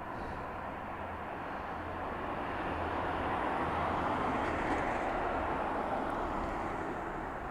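A vehicle passing by on the road, its noise swelling for a few seconds and then fading.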